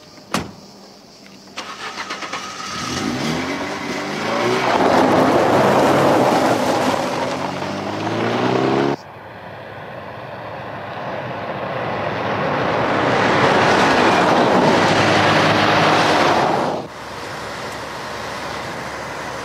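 A truck engine starts and pulls away, its pitch rising as it accelerates. The sound cuts off abruptly about halfway through. It is followed by a second stretch of engine noise that builds, then drops to a quieter steady drone near the end.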